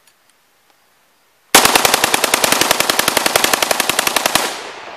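WASR-10 AK-type rifle in 7.62×39 bump-fired through a bump-fire stock: a rapid, unbroken string of shots, more than a dozen a second, starting about a second and a half in and lasting about three seconds, then the echo dies away.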